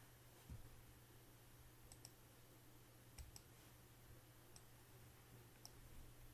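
Near silence with a faint steady low hum and a few faint, sharp clicks, about five or six spread through it: computer mouse clicks.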